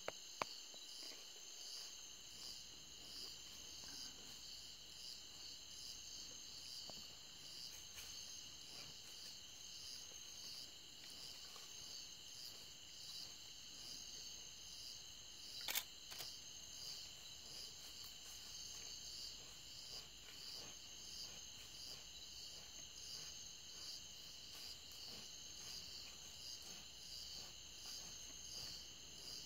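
Night chorus of crickets and other insects: a steady, high-pitched, evenly pulsing trilling. Two sharp clicks stand out, about half a second in and again about sixteen seconds in.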